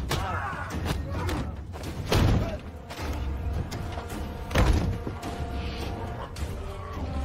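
Film fight sound effects: heavy body thuds and slams of a struggle, the two loudest about two and a half seconds apart, over a low rumbling music score.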